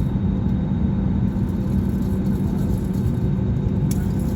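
Steady low rumble with a constant hum inside an airliner cabin, as the engines and air systems run after landing. A brief sharp click about four seconds in.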